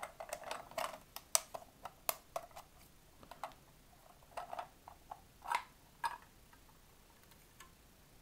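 A hard clear plastic bulb case being handled and prised open: irregular clicks and crackles of the plastic. They are busiest in the first few seconds, with a couple of louder crackles around five and a half and six seconds.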